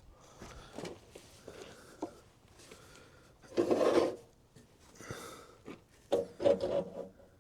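Handling sounds: scattered light knocks and rubbing, with two louder rubbing noises about three and a half and six seconds in, each lasting under a second.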